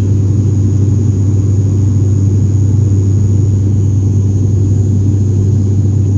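Jet airliner cabin noise during the climb after takeoff: a steady low rumble of engines and airflow, with a thin, steady high-pitched whine over it.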